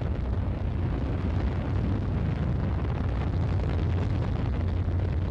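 Steady low rumble of a Soyuz-2.1b rocket in powered flight, its second-stage engine running normally.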